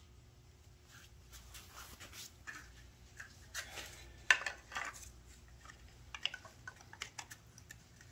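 Light clinks, clicks and short scrapes of hydraulic lifters and a plastic lifter tray being set into the lifter bores of a bare LS V8 engine block, with the loudest knocks a little over four seconds in.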